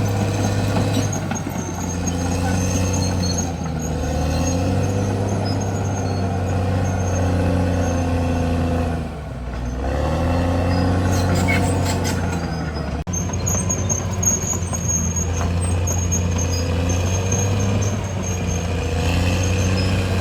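Caterpillar D6R XL bulldozer's diesel engine running under load, its pitch sagging and recovering about halfway through, with the high squeal of the steel crawler tracks and a few metallic clanks.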